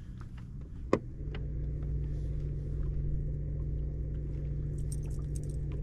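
A boat motor comes up to speed with a steady, droning hum about a second in, just after a sharp click, as the boat moves to follow a hooked musky.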